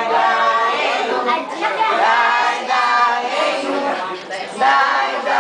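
Several voices, a child's among them, singing a Passover song together in held, wavering notes.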